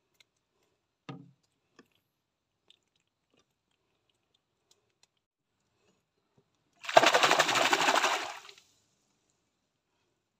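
A fishing reel spinning fast, a loud rapid whirring rattle lasting about a second and a half, from a cast or from line being reeled in. Earlier, a single soft knock.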